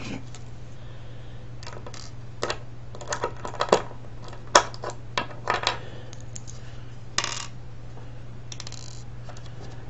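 Irregular sharp clicks and clinks of a precision screwdriver and small metal parts being worked apart on a wooden table, the loudest about halfway through. A short scrape comes about seven seconds in, over a steady low hum.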